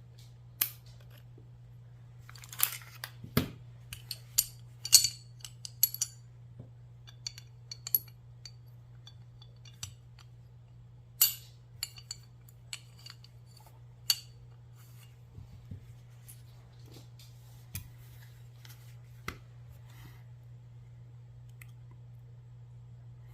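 Scattered sharp metallic clicks and clinks of a Girsan 2311 pistol's parts being handled and worked loose by hand during disassembly. The clicks are most frequent a few seconds in and grow sparser toward the end.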